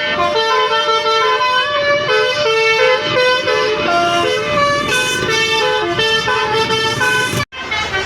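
Bus 'telolet basuri' musical horn playing a quick melody of short stepped notes. The melody breaks off abruptly near the end.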